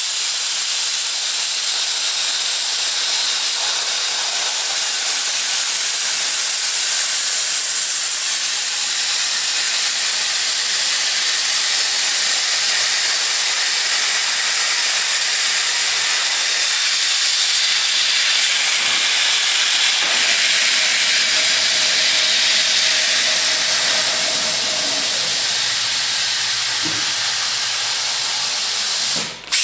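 Plasma cutter torch cutting metal: a loud, steady hiss that breaks off for an instant near the end.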